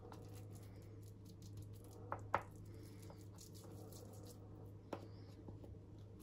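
A spoon scooping cooked bulgur pilaf from a stainless steel pan and packing it into a cup: soft scraping and squishing of the grains, with a few light clicks of the spoon against the cup and pan, the sharpest about two seconds in and another near five seconds. A low steady hum runs underneath.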